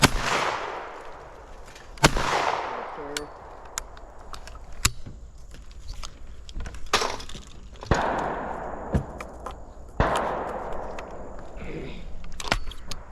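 Four shotgun shots in two pairs about two seconds apart, each a sharp bang followed by a long rolling echo. Fainter, shorter reports and clicks fall between the pairs.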